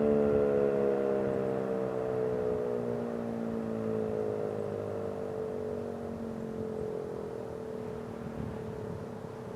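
ACA P-15 outdoor warning siren winding down at the end of its test, its wail sliding slowly lower in pitch and fading as the rotor slows.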